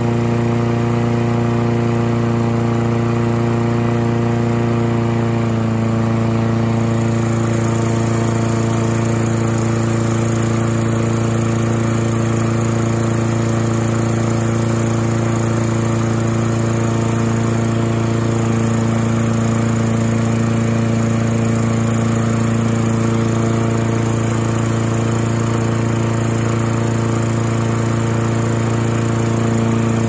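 Lawn Boy mower's Tecumseh vertical-shaft engine running steadily at its governed speed, the note shifting slightly about five seconds in. The governor spring bracket has been bent to bring the speed down to about 3,424 RPM, within the roughly 3,450 RPM limit for a 21-inch blade, from an over-revving 3,750.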